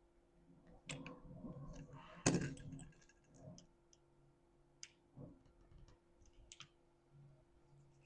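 Small metal parts being handled: scattered clicks and light knocks, with one sharper knock a little over two seconds in.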